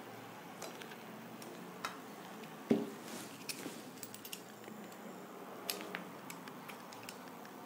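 Knife paring the skin off a ripe mango: faint scraping with scattered small clicks and light knocks against a steel plate, one louder knock about three seconds in.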